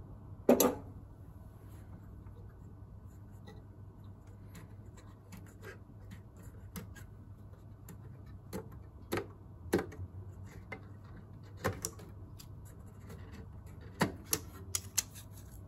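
Scattered sharp clicks and knocks as RAM modules are unlatched and pulled from the DIMM slots of an HP DL785 G5 server's processor-and-memory board, with one louder knock about half a second in and two clusters of clicks later on.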